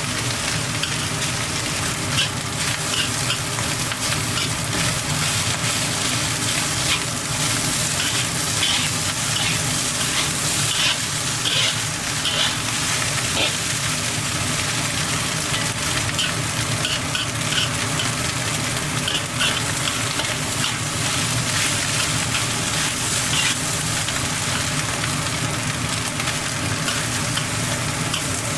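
Crab roe fried rice sizzling steadily in a hot pan while it is stirred, with short scraping clicks of the utensil in scattered clusters.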